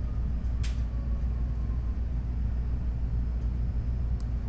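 Steady low electrical hum from the recording setup, with a single sharp mouse click about half a second in and a faint tick near the end.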